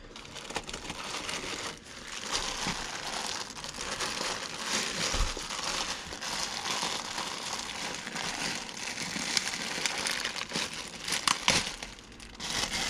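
Clear plastic accessory bag crinkling and rustling as it is lifted out of a cardboard box and handled, with a few sharper crackles near the end.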